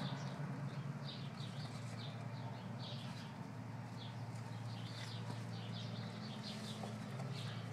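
Small birds chirping in quick, irregular short notes over a steady low hum.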